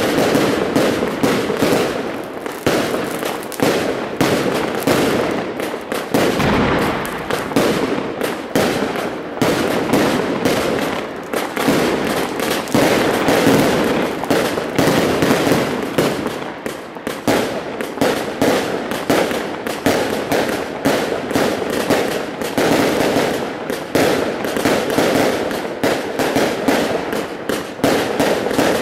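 Aerial fireworks going off in a continuous rapid string of bangs and crackles.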